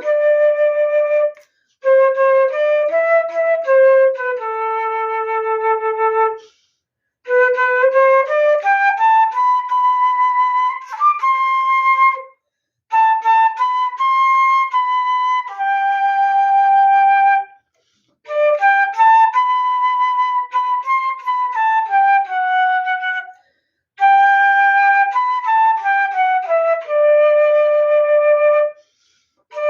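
Solo flute playing a slow melody unaccompanied, in phrases of about four to five seconds with short breaks for breath between them.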